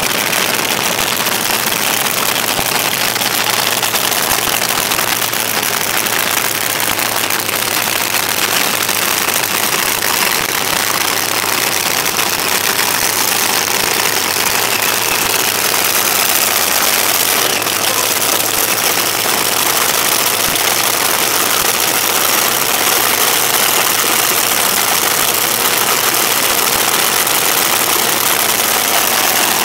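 Top Fuel dragster engines, including the Orange Crate's supercharged nitromethane engine, idling loud and steady with no revving.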